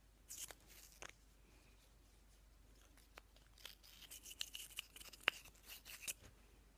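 Mascara wand scraping and clicking against its plastic tube as it is pulled out and worked back in; the tube is empty. The sounds are quiet: a brief scratch near the start, then a denser run of sharp clicks and scraping in the second half.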